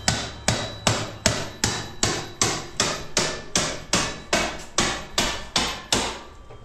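A hammer striking steadily and evenly, about two and a half blows a second, with a faint ringing after each blow. The blows stop about six seconds in.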